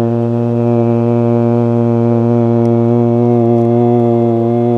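A low, steady, sustained vocal 'haw' held as one long note: the healing sound for the heart, voiced on the out-breath in a breathwork exercise.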